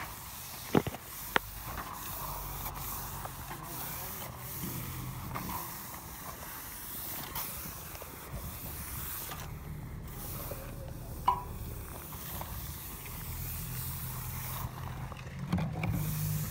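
Steel finishing trowel scraping and rubbing across freshly laid resin-bound stone aggregate, with sharp clicks of the trowel twice about a second in and once near the middle.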